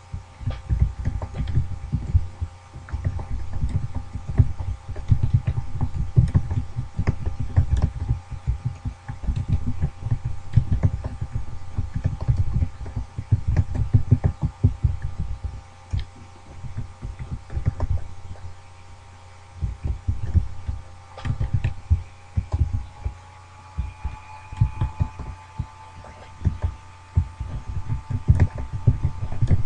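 Computer keyboard typing picked up by the computer's own microphone: quick, uneven runs of dull low keystroke thumps with light clicks, pausing now and then. A steady faint electronic whine runs underneath.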